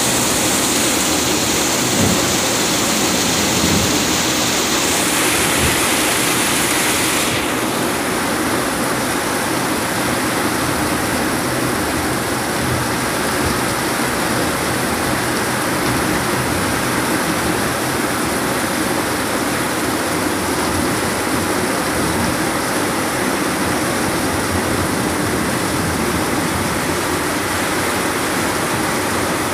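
Heavy downpour: a steady hiss of rain falling on roofs, with water streaming off the roof edge. The brighter top of the hiss drops away about seven seconds in.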